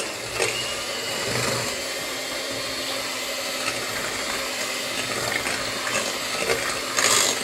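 Electric hand mixer running steadily, its beaters whisking thin, milky cake batter in a glass bowl.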